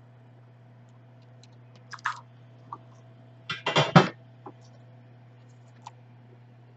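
Small hard tools and parts clicking and clattering on a repair workbench during soldering work: a couple of clicks about two seconds in, then a louder, quick run of clatter a little past the middle, over a steady low hum.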